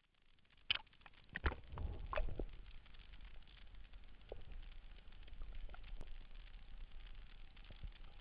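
GoPro in its waterproof housing plunged into seawater: a few splashes and knocks in the first couple of seconds, then muffled underwater water noise with a low rumble and scattered faint clicks.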